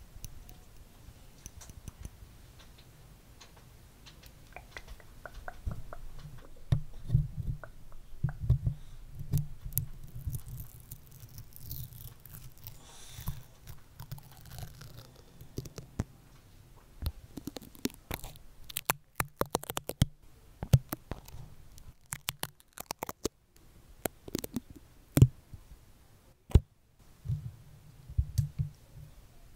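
Stickers being pressed onto and peeled off a microphone right at the mic: sticky crackles, scratches and sharp clicks, with low thumps of hands handling the mic.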